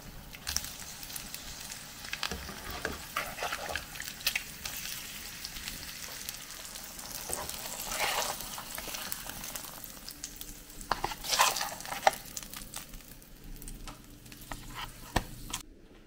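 Eggs sizzling in hot oil in a nonstick frying pan, with a spatula scraping and tapping the pan as the eggs are slid and turned over easy. The scrapes are loudest about eleven to twelve seconds in.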